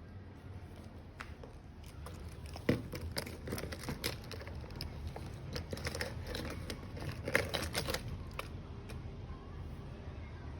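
Handling noise: a run of scattered clicks, light knocks and rustling, with two sharper knocks, one a few seconds in and one near the middle, then it fades to a low hum.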